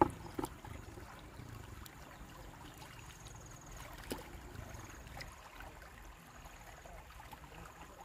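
Shallow river water trickling and rippling over sand, with a sharp knock right at the start and a couple of fainter clicks later.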